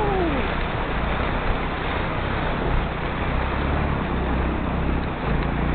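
Motorcycle engine running steadily at low revs, under a continuous rushing noise from the flooded river it is crossing.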